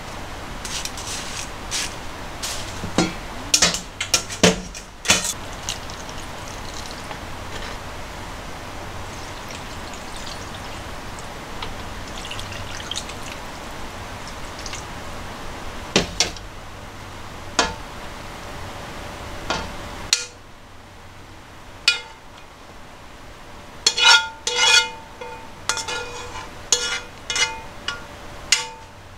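Kitchenware clinks and knocks over a steady hiss as food is tipped into a serving bowl and sauce poured over it from a jug; the hiss cuts off suddenly about two-thirds of the way in. Near the end, a metal spoon scrapes and taps against a frying pan, giving a run of ringing clinks.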